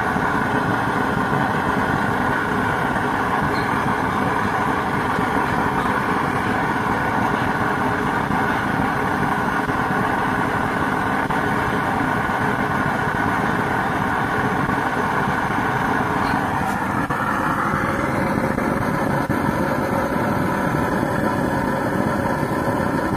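Waste-oil drip stove running: the steady whirr of its blower fan mixed with the rush of the oil-fed burner flame. The tone shifts and grows brighter about seventeen seconds in.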